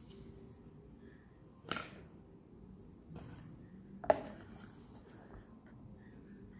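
Hands handling a precision screwdriver set and its cardboard box on a tabletop: two light, sharp knocks, one under two seconds in and a louder one about four seconds in, with soft rustling between.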